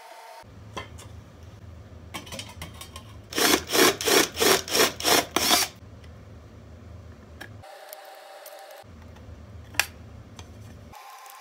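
Tin snips cutting into a thin sheet-metal lid: about seven loud rasping cuts, about three a second, in the middle, then a single sharp click near the end.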